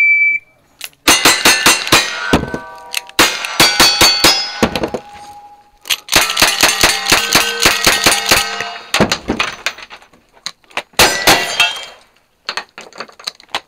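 Short shot-timer beep, then fast strings of gunshots from cowboy-action guns, a lever-action rifle among them, each shot followed by the ring of struck steel plate targets. The strings are broken by several short pauses.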